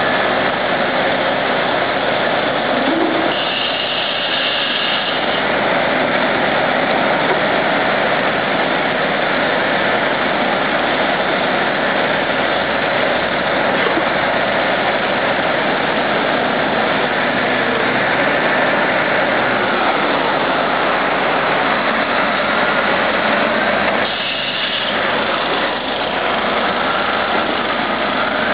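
Heavy diesel engines of a crawler bulldozer and a Tatra 815 dump truck running steadily while the bulldozer tows the truck, which is stuck in soft, waterlogged ground.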